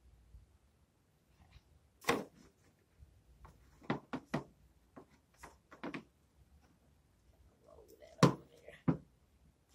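Irregular knocks and taps of a small plastic rolling pin and the fondant on paper against a folding table as fondant is rolled out, the loudest near the end.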